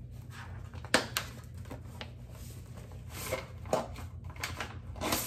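Wig packaging being handled and opened: scattered rustles and clicks, with a sharp click about a second in and more rustling later on.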